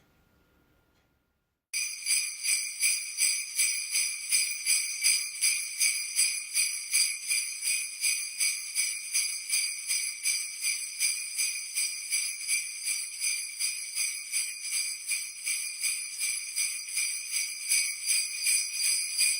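Sleigh bells jingling in a steady rhythm, about three shakes a second, starting suddenly about two seconds in after near silence.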